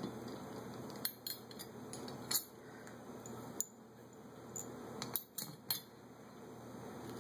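Small metal parts clinking: float-bowl bolts and a nut driver knocking against each other and the Holley carburetor's metal body as the bolts are handled and fitted. It is a scatter of short, sharp clicks, with the loudest about two and a half seconds in and three in quick succession a little after five seconds.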